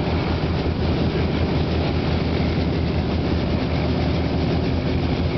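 Light two-blade helicopter running on its pad, its engine and turning main rotor making a loud, steady low sound.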